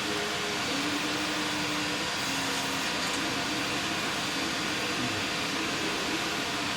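Steady hiss of air from a running fan, with faint wavering tones underneath.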